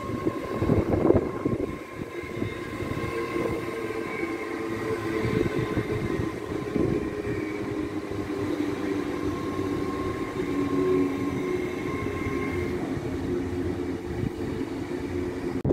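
Great Western Railway intercity train running past on the tracks. Its wheels clack sharply in the first couple of seconds, then a steady drone with a thin whine above it continues as the carriages go by.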